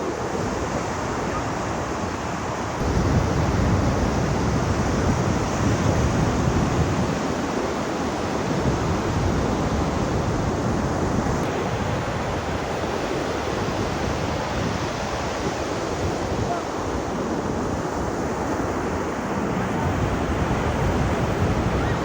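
Ocean surf washing in steadily, with low rumbling surges that grow louder about three seconds in, and wind on the microphone.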